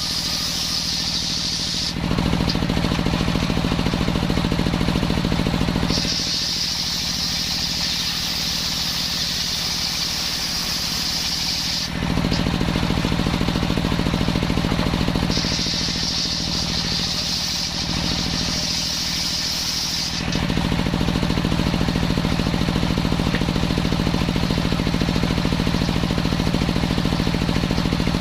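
Engine-driven circular saw running through coconut wood, the engine's steady drone under a high whine from the cutting blade. The whine comes and goes in stretches that switch abruptly with a louder, lower engine drone.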